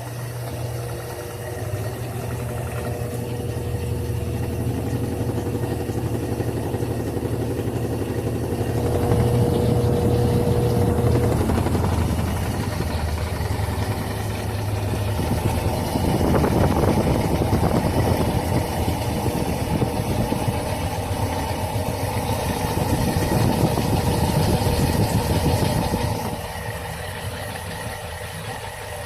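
Electrolux Turbo 10 kg washing machine running, its motor and drum making a steady low hum. It grows louder about a third of the way in and eases off shortly before the end.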